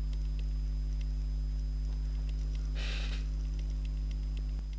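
Steady low electrical hum with faint, scattered small clicks of handling, and a brief hiss about three seconds in.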